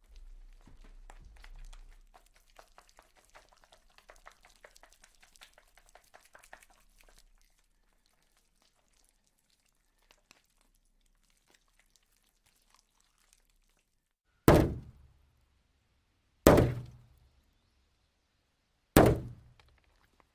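Faint, dense crackling ticks for the first several seconds, then three loud heavy thuds about two seconds apart, each a sudden impact that dies away quickly.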